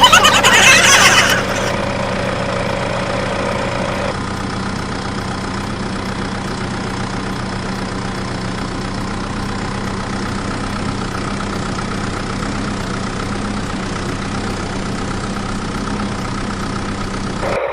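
Mini tractor engine idling steadily, after a louder, rougher burst in the first second or so.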